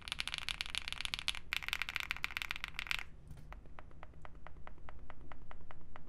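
Fast typing on a Mammoth75 mechanical keyboard with KTT Kang switches, GMK keycaps and a PE film layer under the switches: a quick run of key clacks with a brief pause in the middle. The typing stops about three seconds in, and slower, separate clicks follow a few times a second.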